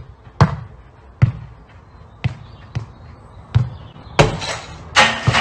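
Football being kicked, a sharp thud about once a second, then two louder crashes near the end as the ball strikes the house.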